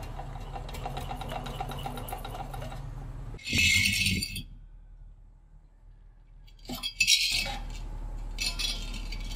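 Metal engine parts, a shock-absorber cylinder and a compressor shell, being handled on a concrete ledge. A fine, fast rattling clatter runs for about three seconds, then comes a short loud scrape. After a pause there are a few clicks and two more short scrapes near the end.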